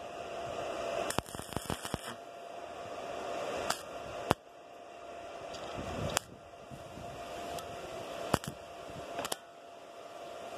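Electric arc welding on steel: a steady crackling hiss that swells and drops off every couple of seconds, with several sharp cracks.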